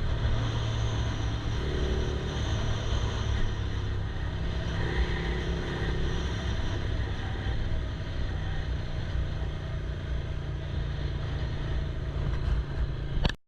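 Yamaha R6 inline-four sport bike engine running steadily while riding, under a constant rush of wind and road noise. The sound cuts off suddenly near the end.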